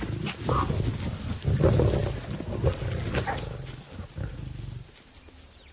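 Lions growling in repeated loud bursts as they squabble over a small kill, dying away shortly before the end.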